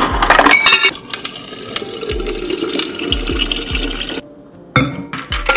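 Refrigerator door dispenser dropping ice cubes into a metal water bottle with a burst of clinks and clatter, then a stream of water running into the bottle for about three seconds. It stops about four seconds in, and there is another short clatter near the end.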